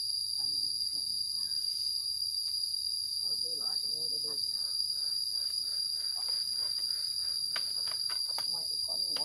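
Steady, high-pitched chorus of insects, a continuous drone that does not let up.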